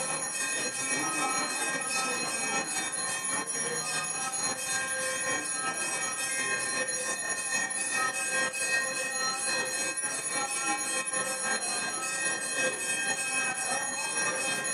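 Temple bells ringing continuously during the aarti, a dense, rapid clanging with many steady ringing tones that keeps up without a break.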